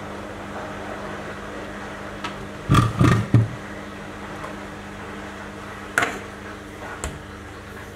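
A jar and its green plastic lid being handled: three dull knocks close together about three seconds in, then two sharper clicks about a second apart near the end, over a steady low electrical hum.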